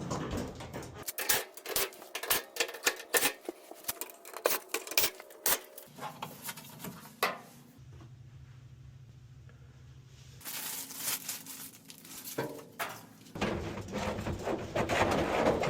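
Clicks, knocks and rattles of a Samsung clothes dryer being worked on by hand, then a steady low hum for a few seconds, then dense rustling and scraping noise.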